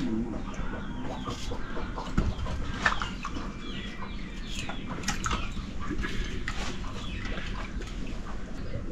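Chickens clucking and chirping, with a few light clicks and scrapes of a knife as a chayote is peeled and cut.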